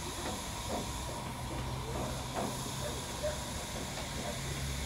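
Distant Airbus A319 jet engines idling: a steady low rumble under a continuous hiss, with a few faint short sounds on top.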